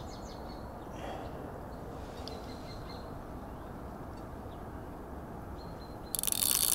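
Quiet outdoor background with a few faint bird chirps; about six seconds in a loud, even whirring from the spinning reel sets in as a hooked fish, which the angler takes for a catfish, pulls on the bent rod.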